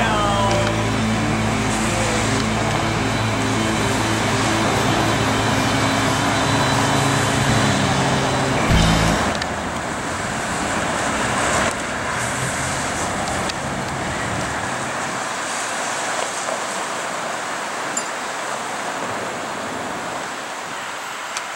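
Street traffic: a vehicle engine running with a steady low hum for about the first nine seconds, then a brief low thump, after which the rush of passing cars and road noise carries on.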